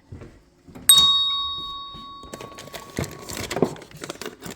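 A single bright, bell-like ring that fades out over about two and a half seconds, followed by rustling and light clattering of things being handled.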